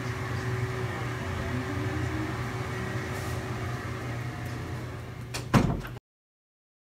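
A steady low electrical hum. About five and a half seconds in come two sharp knocks in quick succession, then the sound cuts off abruptly into dead silence.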